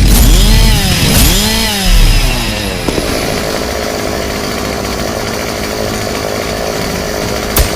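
Chainsaw revved twice, its pitch rising and falling each time, then running steadily at high speed.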